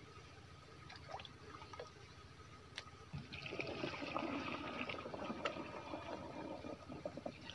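Water poured from a plastic jug into the tank of a backpack sprayer, a steady splashing pour that starts about three seconds in.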